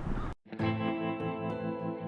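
Background music with sustained, evenly stacked notes, coming in after a brief hard cut about half a second in.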